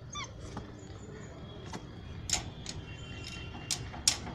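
Beagle puppies' paws scrabbling against a wire mesh gate: a series of sharp clicks and rattles that come more often toward the end, after a brief high whimper at the start.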